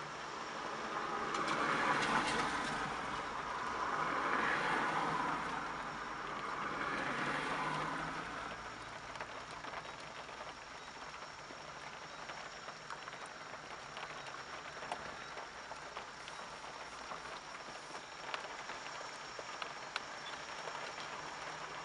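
Boeing 777 jet engines running at low power on the runway. The noise swells three times in the first eight seconds, then settles to a steady, lower level, with light rain pattering on the microphone.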